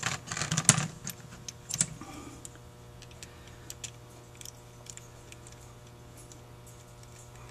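Small metal clicks and taps of choke linkage parts being fitted back onto a Carter YFA carburetor by hand, several sharp ones in the first two seconds, then only scattered faint ticks over a steady low hum.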